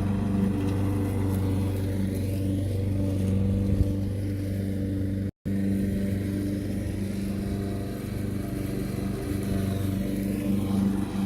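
An engine running steadily at an even speed, a low constant hum with a short break about five seconds in.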